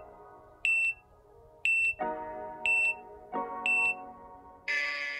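Workout interval timer's countdown beeps: four short, high beeps one second apart marking the last seconds of the interval, then a longer, noisier tone near the end as the interval finishes. Soft background music plays underneath.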